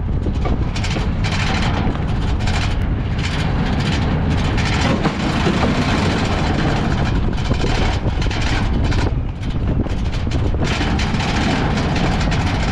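Steady rumbling road noise of vehicles in motion, with a constant low rumble and fluttering noise but no clear engine tone: wooden race carts rolling down the street, heard with wind on the microphone.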